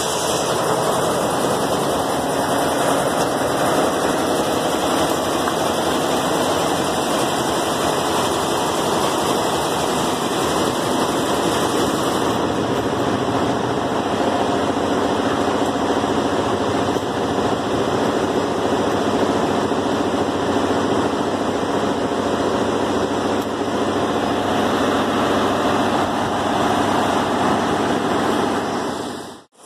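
Steady, even machine running noise with no clear rhythm or pitch, cutting out briefly near the end.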